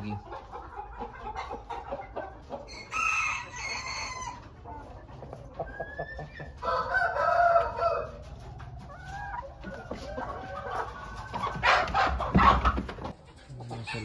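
Chickens calling: separate crows and clucks about three seconds in and again around seven seconds, with a louder, busier stretch of calling near the end.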